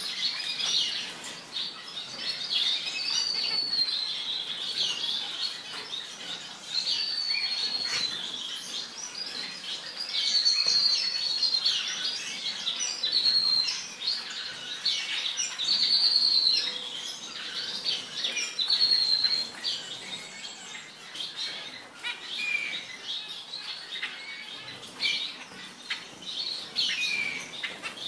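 Small finches, zebra finches among them, chirping and calling again and again in short, high, arched notes, with occasional wing flutters.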